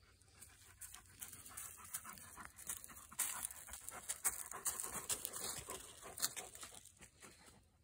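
A dog panting rhythmically, louder from about three seconds in until near the end.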